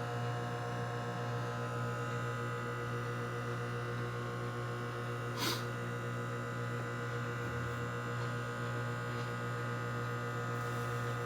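Microwave oven running, a steady electric hum with several fixed tones as it heats eggs in a silicone egg poacher on the turning turntable. A single short click about five and a half seconds in.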